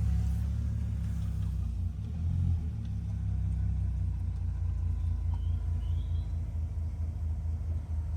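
Audi TT 2.0 TFSI turbocharged four-cylinder petrol engine running with a steady low rumble, rising briefly about two seconds in.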